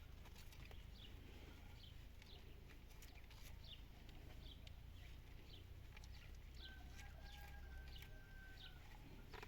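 Near silence, with a bird's faint short chirps repeating about once or twice a second, and a faint steady tone lasting about a second and a half past the middle.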